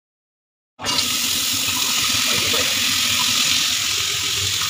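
Wet vegetables and beans sizzling in hot oil in a steel wok: a loud, steady hiss that starts abruptly about a second in.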